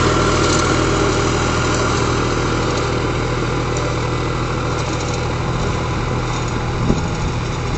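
Preet tractor's diesel engine running steadily under load while pulling a plough through the soil, slowly growing quieter as it moves away. One brief knock near the end.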